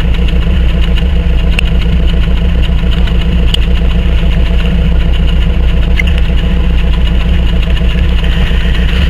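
Vehicle engine idling steadily and loudly, with a few faint clicks.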